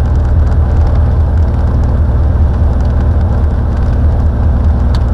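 Cessna 182's piston engine and propeller running steadily, a loud low drone.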